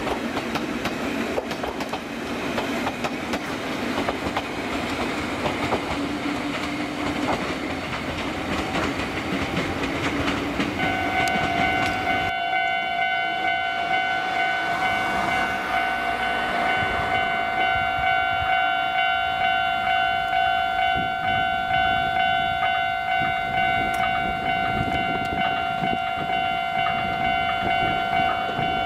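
Ichibata Electric Railway 3000 series electric train running past with wheel and rail noise. About eleven seconds in, a railway level-crossing alarm starts ringing in a steady repeating pattern, about one and a half rings a second, while a train approaches.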